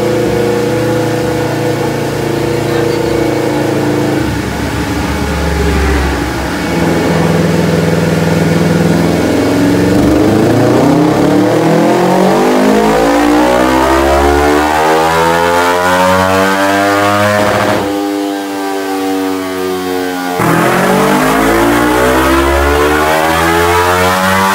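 Motorcycle engine on a dynamometer, running steadily at moderate revs, then pulled at full throttle with the pitch climbing steadily until it cuts off abruptly about three-quarters of the way through. A couple of seconds later a second rising full-throttle pull begins.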